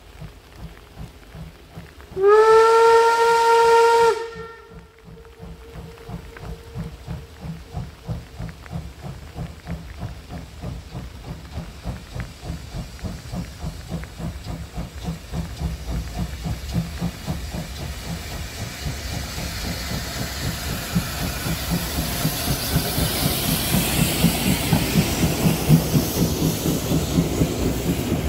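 A steam locomotive sounds one whistle blast of about two seconds. Its exhaust chuffs then grow steadily louder as it approaches with a loaded freight train, and a hiss builds as it draws level.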